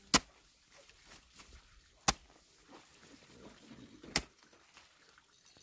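Three sharp, short knocks, evenly spaced about two seconds apart.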